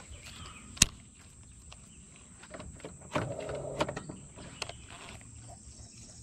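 Baitcasting rod and reel being worked by hand: one sharp click a little under a second in, a short whirring from the reel a little past the middle, and scattered light clicks.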